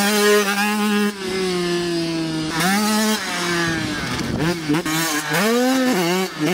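Youth dirt bike engine revving hard as it accelerates, the pitch climbing, holding and dropping back again and again as the throttle is worked, with quicker blips in the second half.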